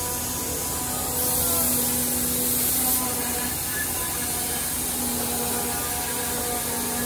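CNC jigsaw (scroll saw) woodworking machine running with a steady mechanical hum, and a hiss of compressed air starting about a second in and lasting about two seconds.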